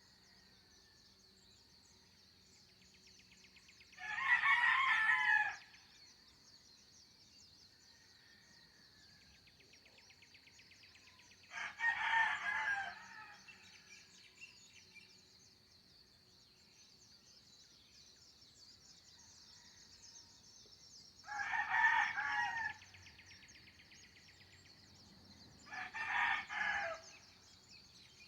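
Roosters crowing four times, several seconds apart, each crow lasting about a second and a half. A faint steady high-pitched drone and faint bird chirps carry on underneath.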